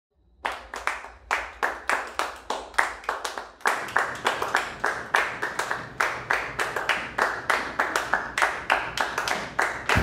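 A group of people clapping their hands together in a steady repeating rhythm, about four claps a second, starting about half a second in.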